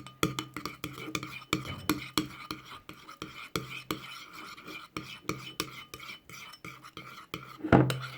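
A teaspoon stirring glue in a bowl, with quick, irregular clicks and scrapes of the spoon against the bowl and a louder knock near the end.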